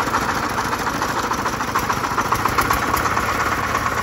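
30-horsepower single-cylinder diesel engine of a công nông farm truck, running at a steady speed with an even, rapid knocking beat during an engine test.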